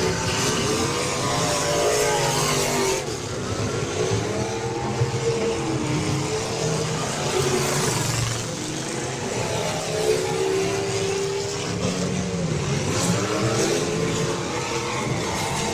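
Several full-size race cars' engines revving and running hard at once, their pitches repeatedly rising and falling as the drivers accelerate and lift off.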